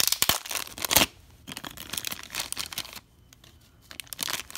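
Clear plastic packaging bag crinkling and rustling as a Beyblade layer is worked out of it by hand, with sharp crackles in the first second and a half. The rustling is quieter after that and crinkles again near the end.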